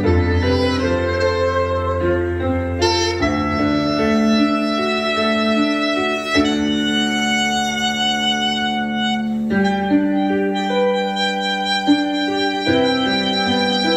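Curved soprano saxophone playing a slow melody with long held notes over a backing track with bass, piano and strings.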